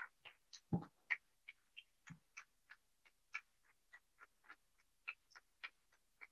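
Faint, irregular clicks and taps, about three a second, with two soft knocks about one and two seconds in.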